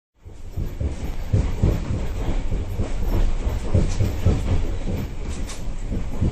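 Passenger sleeper train running on the rails: a steady rumble with uneven knocking and clatter from the wheels over the track.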